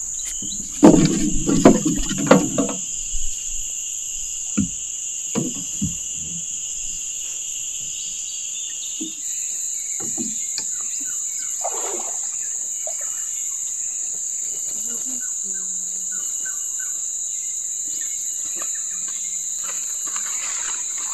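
A steady, high-pitched drone of insects. In the first three seconds, green bamboo poles knock and clatter against each other and the wooden boat as they are loaded, with a few lighter knocks after that.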